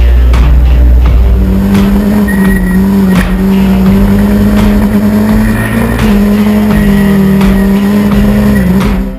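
Ford Fiesta RS WRC rally car's 1.6-litre turbocharged four-cylinder engine heard from inside the cabin. Its note rises about a second and a half in, then is held high and steady with a few brief dips while the car is driven hard.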